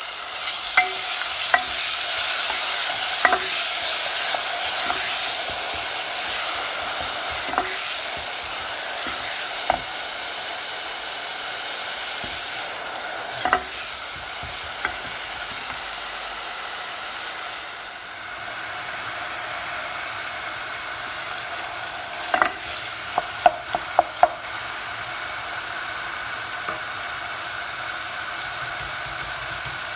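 Chopped onions sizzling in hot oil in an aluminium pot. The sizzle is loudest at first and settles lower after about a dozen seconds. A wooden spatula stirs and knocks against the pot now and then, with a quick run of taps about three-quarters of the way through.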